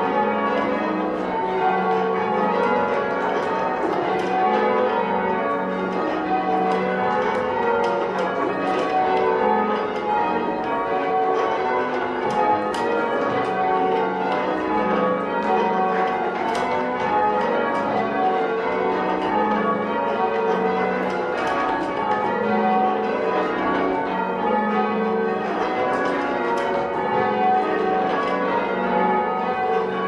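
Church bells rung full-circle in the English change-ringing style, a steady, unbroken stream of bell strokes following one another in even rhythm.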